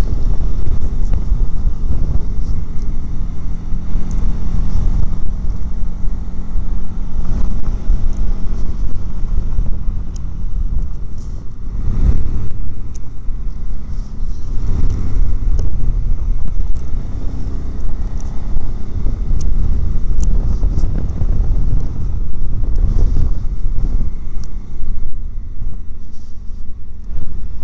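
Motorcycle engine running at road speed, with a heavy low rumble of wind and road noise on the bike-mounted microphone.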